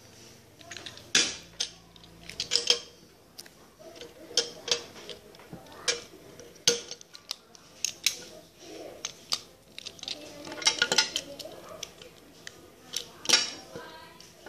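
Small plastic and metal toy train parts handled on a hard table: irregular clicks, taps and light knocks as pieces are picked up, fitted and set down.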